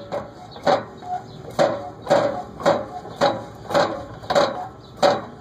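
Exhaust leak at a bad exhaust-pipe flange on a 2000 Ford F-150's 5.4-litre V8 making a short chirp that repeats a little under twice a second, evenly.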